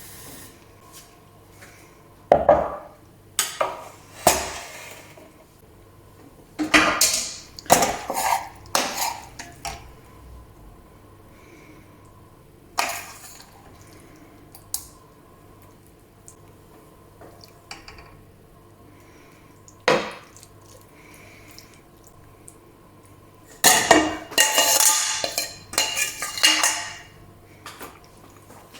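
A metal spoon scraping and knocking against a pot and a serving dish as cooked chicken curry is spooned from one into the other. The clatters come in irregular bunches with quiet gaps between, the busiest near the start and again near the end.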